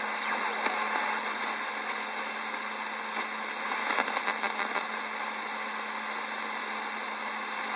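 CB radio receiver on channel 28 putting out steady static hiss with a faint low hum through its speaker: an open channel with no station readable, between long-distance skip transmissions. A few faint crackles come through about four seconds in.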